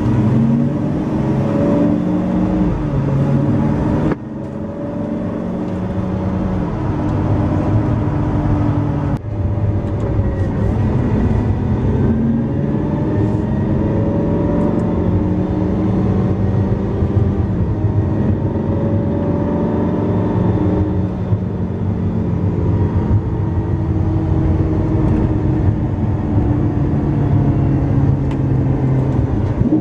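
Lamborghini Aventador LP700-4's V12 engine under way, its pitch rising and falling as it accelerates and shifts through gears. The sound breaks off and resumes abruptly about four and nine seconds in.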